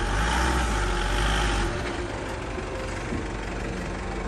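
Isuzu V-Cross pickup's diesel engine working under load as it crawls along a rough off-road trail. It is louder for the first second and a half, then runs steadier and quieter.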